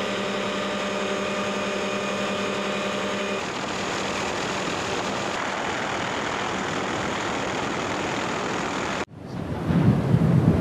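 Steady helicopter cabin noise, an even engine and rotor drone with a held hum that changes about a third of the way in. About 9 s in it cuts off and a loud, uneven low rumble takes over, with wind buffeting the microphone near erupting lava fountains.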